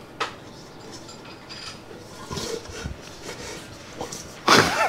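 Kitchen food preparation: a single sharp knock, as of a knife or utensil on a board, just after the start, then faint scraping and rubbing. A short loud, noisy burst with a gliding pitch comes near the end.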